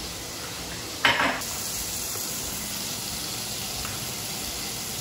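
Food frying in a pan, sizzling steadily, with a short louder burst of sizzle about a second in.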